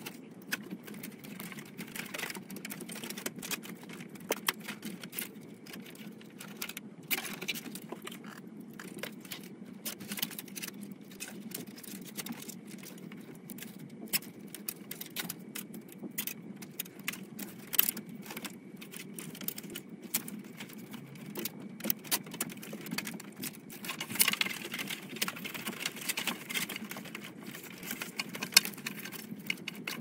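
Irregular clicks and rustling of flat power-supply cables being handled and bundled with plastic zip ties against the PC case, busiest about three-quarters of the way through, over a steady background hum.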